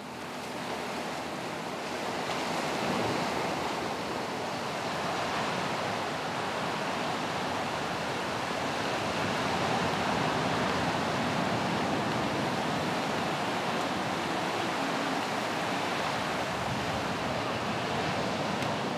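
Ocean surf breaking and washing onto the shore, a steady rushing sound.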